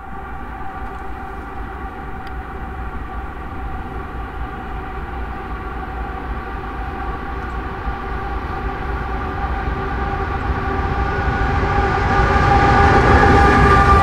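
Diesel locomotives hauling an intermodal freight train approach and draw level, their engines' low rumble and a steady whine growing steadily louder.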